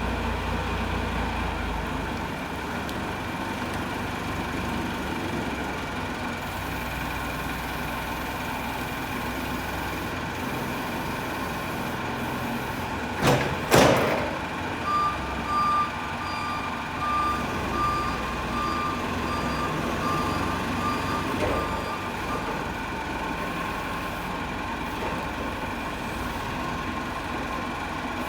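Forklift engine running steadily. Two loud clunks come just before the middle, then its reversing alarm beeps in an even run for several seconds.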